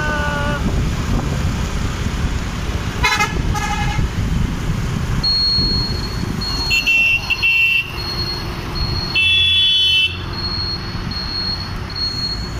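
Riding on a motorcycle in road traffic: steady wind and engine noise, with vehicle horns honking in short blasts about 3 s in, around 7 s and again around 9–10 s. A high, repeating beep sounds on and off from about 5 s in.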